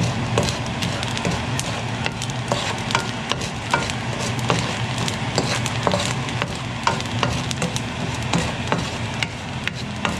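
A wooden spatula scrapes and stirs rice grains through hot salt in a nonstick wok. Many scattered sharp clicks and pops come from the grains cracking in the heat, over a steady low hum.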